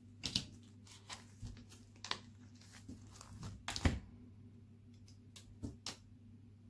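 Paper handling: a small sticker being peeled off its backing sheet and picked up, making a string of short crackly, scratchy sounds, the loudest nearly four seconds in.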